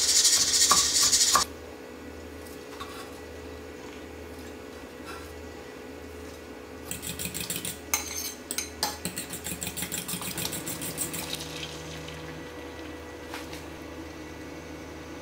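Kitchen utensil clicking and scraping against a dish or pan in a quick, even rhythm for about four seconds in the middle. It follows a loud hiss that cuts off suddenly about a second and a half in.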